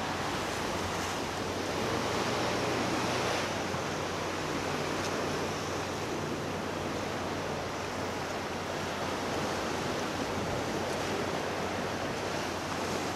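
Choppy sea waves washing and splashing, a steady rush of water noise, with wind buffeting the microphone.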